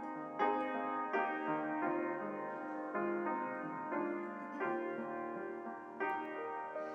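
Slow, gentle piano music, with notes and chords struck about once a second and left to ring.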